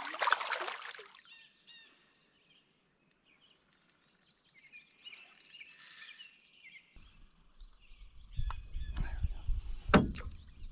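Small birds chirping in short high phrases over otherwise quiet surroundings. Near the end, low rumbling handling noise and a sharp knock come in as a northern pike is lifted from the water beside the canoe.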